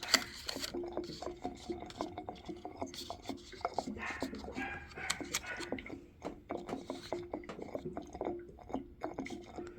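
Threaded metal pipe fitting on a water heater's relief valve being unscrewed by hand: a run of small irregular metallic clicks and scrapes, with a faint steady hum underneath.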